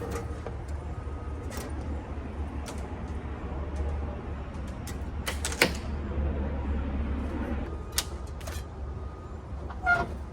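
Scattered clicks and knocks of cable, plug connectors and a rubber grommet being handled and pushed into place, over a steady low hum.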